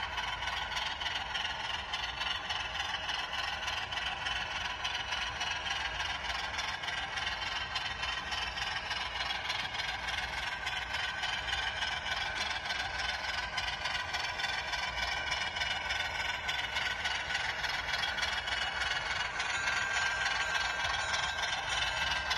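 Model railroad locomotives running on the layout track: a steady mechanical whine with wheel and rail rattle. It gets a little louder over the last few seconds as the train comes closer.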